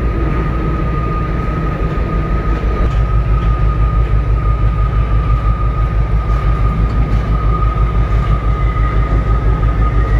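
Heavy machinery running: a deep, steady rumble that pulses about four times a second, with a steady high-pitched whine over it.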